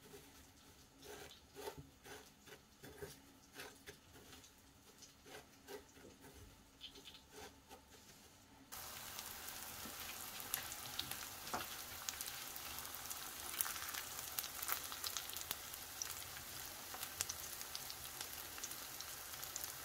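Hands pressing pieces of chicken fillet into coarse breadcrumbs, giving faint, separate crunchy rustles. About nine seconds in, this gives way to breaded chicken pieces frying in vegetable oil in a pan: a steady sizzle with small crackles.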